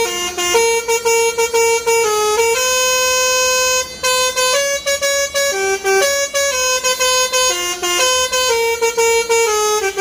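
Telolet horn on a truck, a set of air horns playing a tune. It holds loud notes that step up and down in pitch every half second or so, with brief gaps between some notes.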